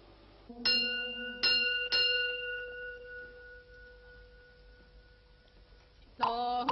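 A Buddhist prayer bell struck three times in quick succession, its tones ringing on and slowly fading. Near the end, women's prayer chanting begins.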